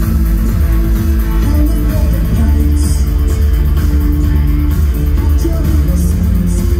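Live darkwave band playing loud synthesizers, a heavy bass beat and electric guitar, with a woman singing. It is a crowd recording, bass-heavy and rough.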